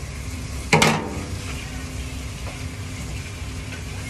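Sautéed vegetables sizzling steadily in a stainless saucepan on a gas burner, with a low hum underneath. Just under a second in, a single sharp clatter: the wooden spoon set down in the stainless steel sink.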